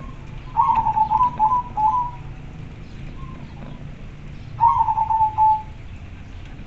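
Male zebra dove (perkutut) giving its clear, trilling coo twice, each phrase a quick run of stuttering notes lasting about one to one and a half seconds, the male's call to a female.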